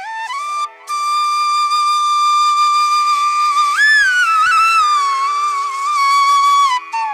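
Flute music: a melody of long held notes that glide up and down in pitch, over a steady drone. There is a short break about two-thirds of a second in.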